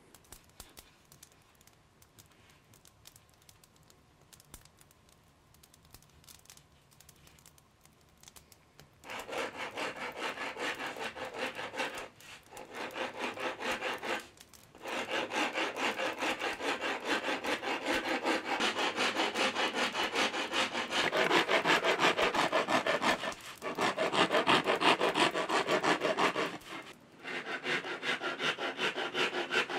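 A hand rasp worked in fast, even strokes along a wooden bow limb, shaving and shaping the wood. It starts about nine seconds in after a quiet stretch and stops briefly a few times.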